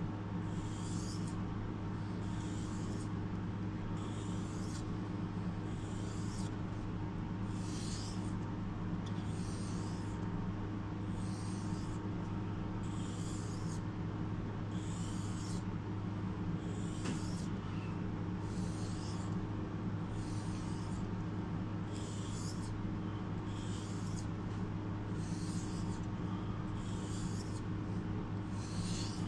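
A kitchen knife being stroked across a whetstone, each pass a short gritty scrape, about one a second in a steady rhythm. A steady low hum runs underneath.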